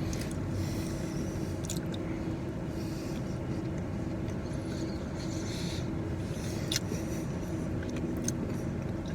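Steady low hum, with a faint held tone, from inside a car with its engine running, and a few faint clicks now and then.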